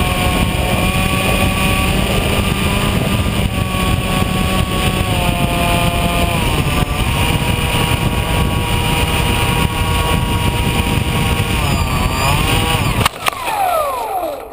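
Onboard sound of a Bixler foam model plane in flight: heavy wind rush over the airframe with the steady whine of its electric motor and propeller, the whine shifting in pitch a few times as the throttle changes. Near the end the rush cuts off sharply and a whine glides down in pitch.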